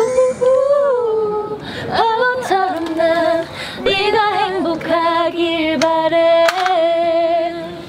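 Women singing a Korean ballad unaccompanied, in loud sung phrases with long held notes and vibrato.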